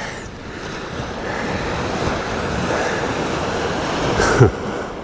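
Surf washing on the beach, swelling and easing, with wind buffeting the microphone. A short sharp sound comes about four seconds in.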